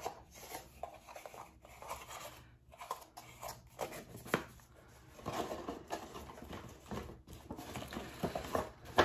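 Rustling and crinkling of a jewelry gift box and its drawstring pouch being handled and opened, in irregular short bursts with a sharp click about four and a half seconds in.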